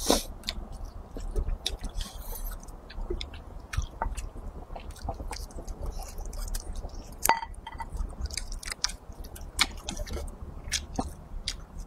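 A person chewing braised pig's trotter with rice, close to the microphone: wet chewing with many irregular small smacks and clicks, and a few louder smacks.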